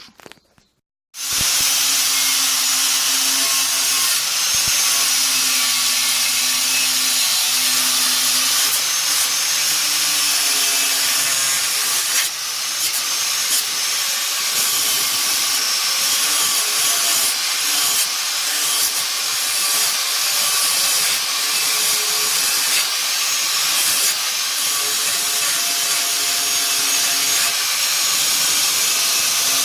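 A power tool's spinning abrasive wheel scrubbing rust and grime off a dirty metal motorcycle part. It starts about a second in and runs steadily, with a faint motor hum underneath.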